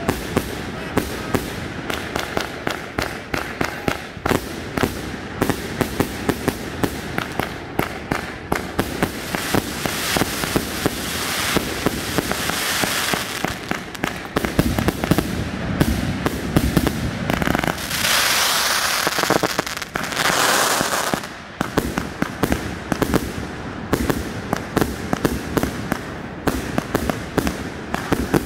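Consumer aerial fireworks firing in quick succession: a dense string of launch thumps and bursting cracks, with two longer stretches of hissing crackle in the middle.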